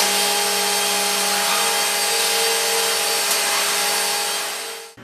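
Accu-Systems VXP multi-spindle CNC machine running, its spindle motors giving a steady whine and hum over a wide hiss; the sound stops abruptly near the end.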